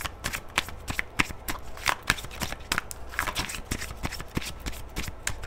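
A deck of oracle cards being shuffled by hand: a quick, uneven run of small card snaps and flicks.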